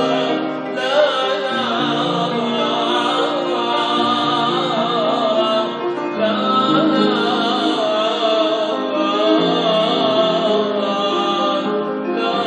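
A man singing a church hymn solo, his melody wavering and ornamented, over held chords on a keyboard.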